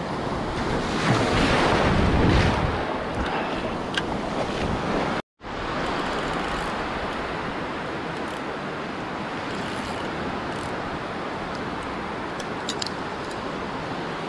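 Ocean surf breaking and washing up a sandy beach, with wind buffeting the microphone. A wave surges louder about a second or two in, and the sound drops out completely for a moment around five seconds in.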